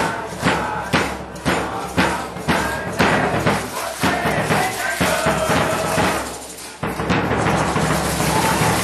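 Music with a steady percussion beat of about two strikes a second, growing busier from about three seconds in.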